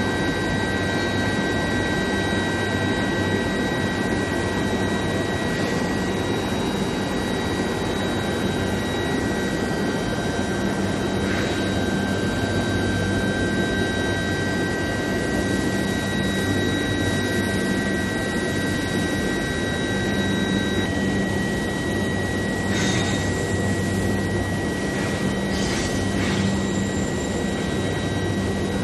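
Steel bar induction hardening and tempering line running: a steady, loud machinery noise with several high, steady whining tones, one of which stops about two-thirds of the way through. A low hum comes and goes, and a few short hisses sound near the end.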